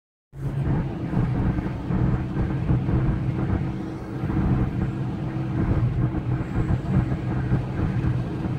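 Car driving along a road, heard from inside the cabin: a steady low hum of engine and tyre noise that cuts in suddenly right at the start.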